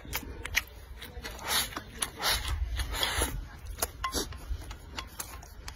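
Close-up eating sounds: chopsticks clicking and scraping on a bowl as rice is shovelled into the mouth, with chewing and smacking mouth noises that are busiest about two to three seconds in.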